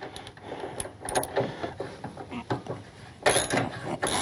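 Small metal clinks of a 3/4 inch socket and ratchet being fitted onto a motorcycle's top shock bolt. A little over three seconds in, the hand ratchet starts clicking in strokes.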